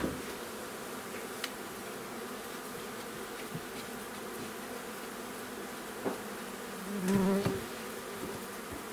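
Honeybees humming steadily around an open wooden hive, with a few light knocks of hive frames being handled. A louder, closer buzz passes about seven seconds in.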